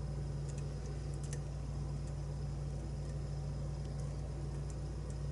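Faint, scattered ticks of a lock pick working the pin stacks of a pin-tumbler challenge lock under tension, over a steady low electrical hum.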